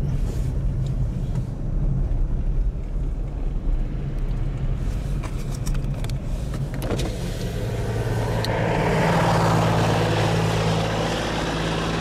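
Steady hum of a car's engine and tyres on a snowy road, heard from inside the cabin, with a few light clicks in the middle and a swell of rushing noise about eight seconds in.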